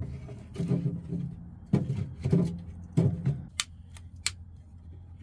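Logs knocking and rustling as they are set in the firebox of a tent wood stove, then three sharp clicks of a long utility lighter being sparked to light the fire, about three and a half seconds in.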